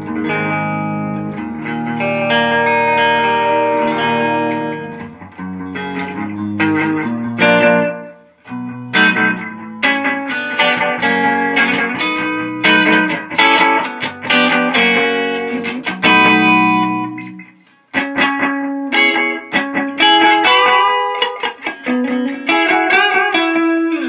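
Michael Kelly electric guitar played through an amplifier: phrases of chords and single-note lines with long ringing sustain, with short breaks about eight and eighteen seconds in.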